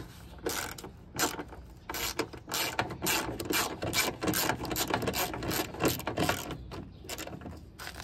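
Quarter-inch drive socket ratchet clicking as it backs out a cowl panel bolt, a long run of rapid clicks that thins out near the end.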